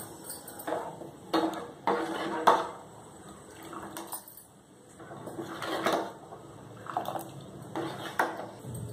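A metal ladle stirring just-added sugar into milky rava payasam in a stainless steel pot, clinking and scraping against the pot in about eight uneven bursts, with some sloshing of the liquid.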